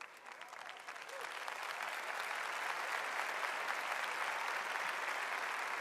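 Audience applause that builds over the first couple of seconds, then holds steady.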